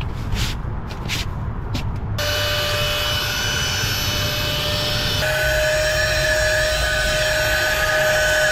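Handheld cordless vacuum cleaner running with a steady whine as it sucks sand off a vinyl car seat. The vacuum starts about two seconds in, after a few short brushing swishes of a hand across the seat.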